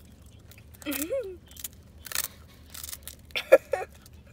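Small dog, a Yorkshire terrier, biting and chewing a crisp ice cream cone: a few sharp crunches, roughly one every half second.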